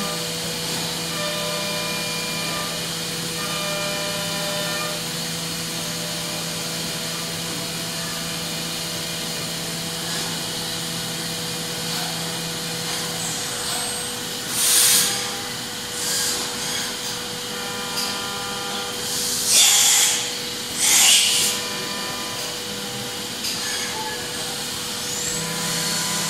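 Deckel Maho DMU 50 five-axis CNC machining centre running a milling program, with a steady machine whine, a low hum that stops about halfway, and shifting higher tones. Coolant is spraying, and there are four short, loud hissing bursts in the second half.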